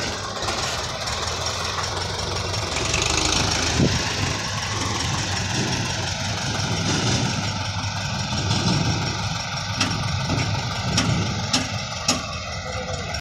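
Belarus MTZ-50 tractor's four-cylinder diesel engine running as it works to pull a brick-laden trolley out of soft ground, with a few sharp clicks in the last few seconds.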